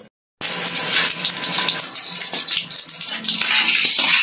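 Whole crabs sizzling and crackling in hot oil in a wok, half-frying in their shells. The sizzle starts just after a brief silent gap at the very start.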